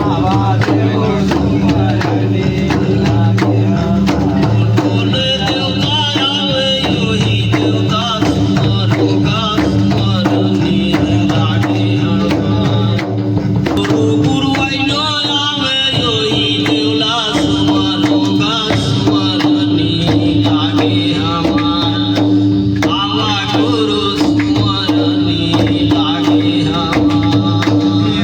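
Chhattisgarhi devotional folk music (jas geet): hand drums keep a steady rhythm under a held drone, with a wavering melody line over them.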